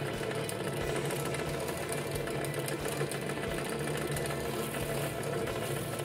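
Benchtop drill press motor running steadily while its bit bores holes through a stack of 6 mm plywood pieces.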